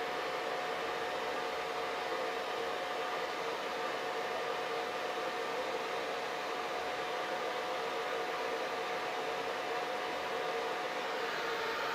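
Hair dryer running steadily: an even rush of blown air with a constant motor whine on top, turning slightly brighter near the end.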